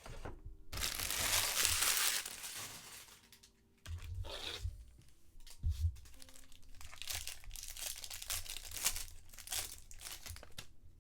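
Foil wrapper of a baseball card pack being torn open and crinkled. There is a loud stretch of tearing about a second in, a short pause, then a run of crackling as the wrapper is handled.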